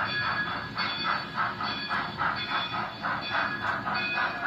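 Model steam locomotive's sound unit chuffing steadily, about four chuffs a second, over a faint steady whine.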